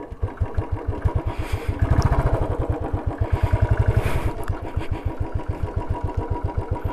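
Royal Enfield's single-cylinder engine running at low revs on a rough downhill dirt track, an even, quick beat of exhaust thumps that grows louder for a moment about two seconds in.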